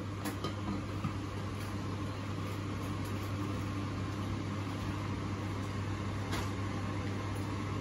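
Steady low electrical hum over a constant background rush, with a few faint clicks.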